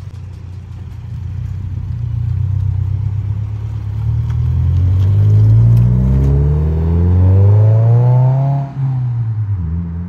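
2022 Subaru WRX's turbocharged flat-four, heard through an Invidia R400 cat-back exhaust, accelerating past. The note climbs, drops at a gear change about six seconds in, climbs again, then falls off sharply near the end as the throttle closes.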